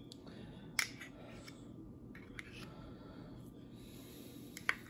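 A few small, sharp clicks and taps from gloved hands handling ingredients over a bowl of avocados, the loudest about a second in, over a low steady hum.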